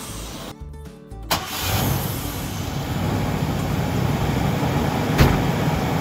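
Brief background music, then a Chevrolet Astro's 4.3-litre V6 starting about a second in and running steadily. The start is boosted by a battery charger's engine-start mode because the battery is flat.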